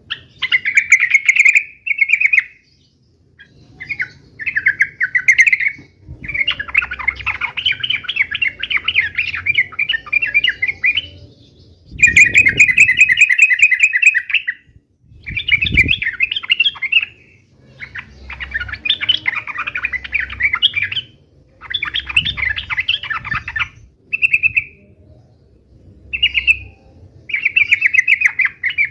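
Yellow-vented bulbul (trucukan) in loud, full song: rapid chattering phrases of quick notes, some short and some running several seconds, with brief pauses between them. A couple of low thuds sound around the middle.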